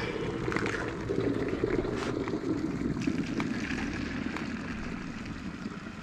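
Boiling water poured from an electric kettle into a plastic bowl of dishwashing liquid, splashing and frothing, the stream slowly easing off toward the end.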